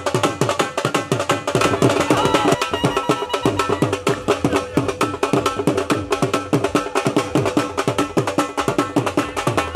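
Fast, driving dhol-style drumming with many strokes a second, the deep strokes dropping in pitch as they ring, played as dance music.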